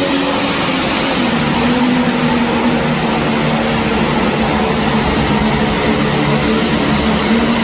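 Heavy pulling tractor's diesel engine running hard at full power. It is loud, drops slightly in pitch about a second in, then holds a steady pitch.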